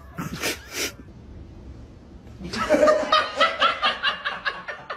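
A person laughing hard in quick repeated bursts, about four a second, starting about two and a half seconds in.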